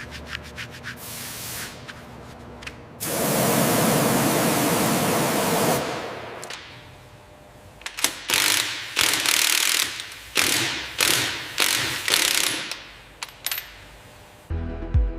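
Workshop tool noises: a run of quick clicks, then a steady hiss lasting about three seconds, then a series of short rasping strokes about twice a second. Electronic music comes in near the end.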